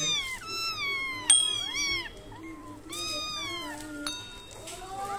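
Several young kittens meowing over and over, a quick run of high, falling cries, some overlapping: hungry kittens crying for milk from a feeding bottle. A sharp click sounds about a second in.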